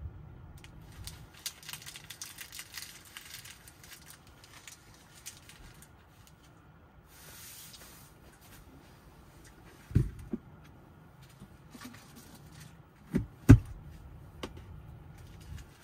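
Crackly rustling of a handled paper tissue, then three low thumps as objects are moved about, two of them close together near the end, the last the loudest.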